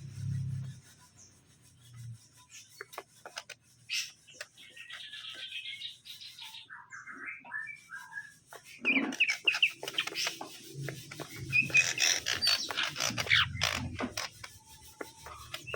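Cucak ijo (green leafbird) calling in short chirps and twitters, with many sharp clicks among them.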